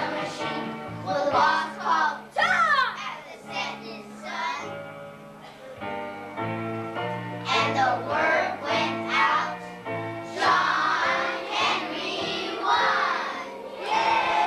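A children's choir sings a song over a steady instrumental accompaniment.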